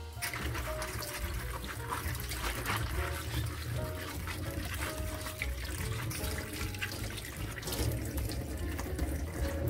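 Tap water running into a stainless-steel sink and splashing over the plastic parts of a manual espresso press as they are rinsed by hand. Light background music plays under it.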